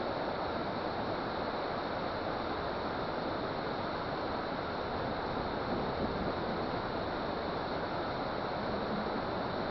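Steady rushing of water, an even noise that holds level without a break.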